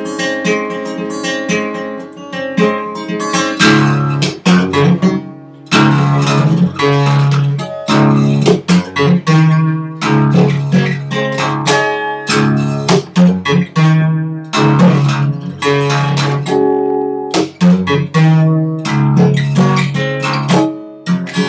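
Acoustic guitar played fingerstyle: a bass line under plucked melody notes and chords, in phrases with a few short breaks.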